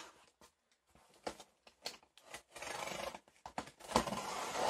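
A box and its packaging being handled: scattered clicks and scrapes, then two longer rasping scrapes near the end, with a sharp knock between them.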